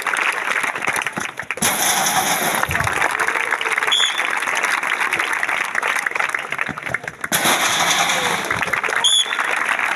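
Crowd of watching students clapping and cheering, with a short high tone about four seconds in and again near the end.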